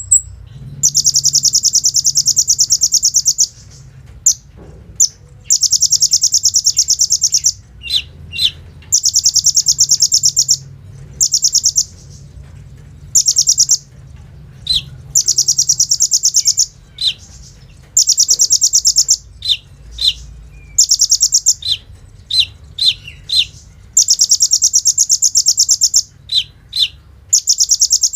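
Kolibri ninja, a sunbird, singing in full song. It repeats long, rapid, rattling trills, each one to three seconds long, with short, sharp high notes between them.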